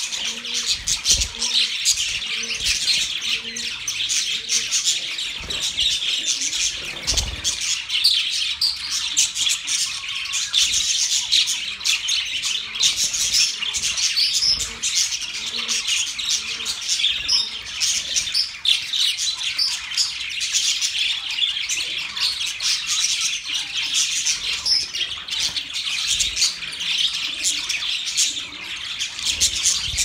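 A flock of budgerigars chattering and chirping together, with many birds calling at once in a dense, unbroken, high-pitched warble.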